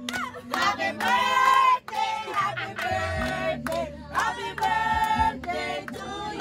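A group of people singing a song together, with several long held notes.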